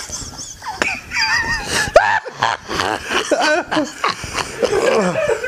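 Several people laughing hard together, in snickers and wheezes.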